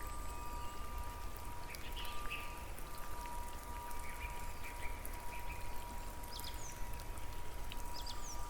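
Relaxation soundscape of steady rain, with a few short high chirps about two, seven and eight seconds in, over a steady held tone.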